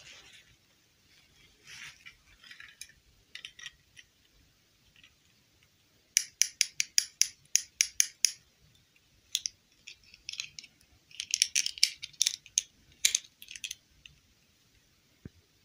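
Small plastic doll and its rubbery clip-on dress being handled: quick runs of sharp plastic clicks and snaps, about five a second at times, as the dress is taken off and clipped back on.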